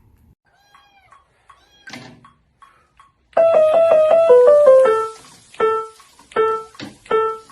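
Piano notes starting about three seconds in, after a faint, nearly quiet stretch: a quick run stepping downward, then three single notes played with pauses between them.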